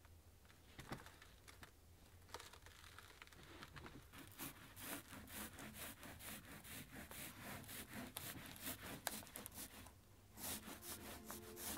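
Faint, quick rubbing strokes of a hand and a tool over a sheet of MDF, starting about four seconds in, with a short pause near the end before they resume. A couple of light knocks come before the strokes begin.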